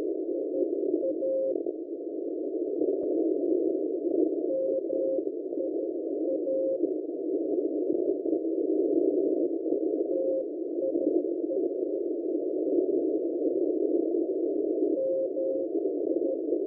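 Unidentified Morse code signal on 7999 kHz shortwave, received as a faint keyed tone of dots and dashes. The tone comes in short groups every few seconds and is almost buried in the steady hiss of the receiver's narrow filter.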